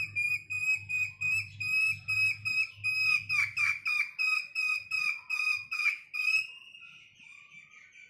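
A young hen calling in a rapid series of high, whistle-like notes, about three a second, for about six seconds. The calls then trail off into a fainter, longer call near the end.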